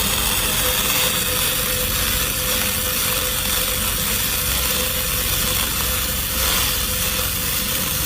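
Arc welding: a steady, dense crackle of the welding arc, with a faint steady hum underneath.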